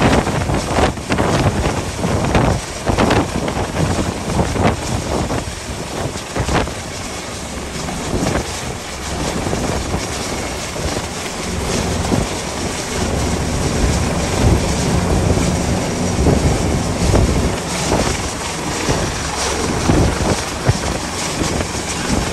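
Gale-force wind buffeting the microphone in gusts, with a steady rush of wind and sea behind it.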